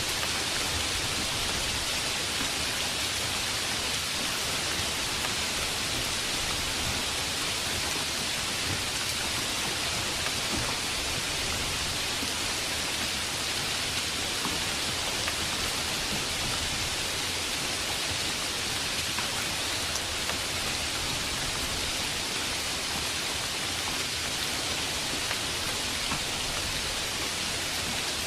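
Steady rain falling: an even, unbroken hiss with no thunder claps standing out.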